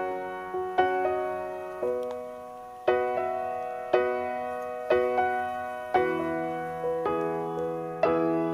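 Solo piano background music, with a note or chord struck about once a second and left to ring away.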